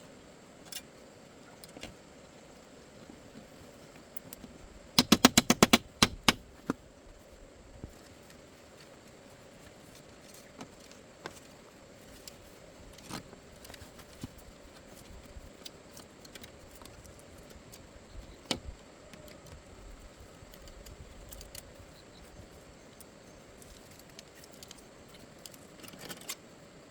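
A quick run of about a dozen sharp taps or knocks, one after another, about five seconds in. Scattered single light clicks and handling noises follow over a faint steady hum.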